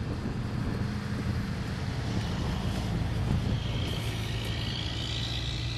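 Large mobile crane's engine running steadily under load as it hoists a rooftop air-conditioning unit, a low hum with a higher hiss joining about four seconds in.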